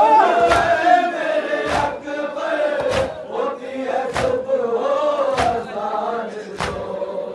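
A crowd of men chanting a mourning lament (noha) together, with a loud collective chest-beat (matam) landing in unison about every 1.2 seconds.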